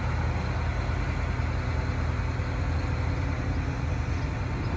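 Heavy diesel engine idling steadily: an even, low drone.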